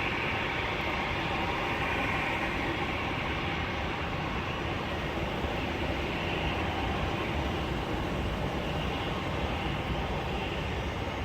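Steady rushing background noise with no distinct events, even in level throughout.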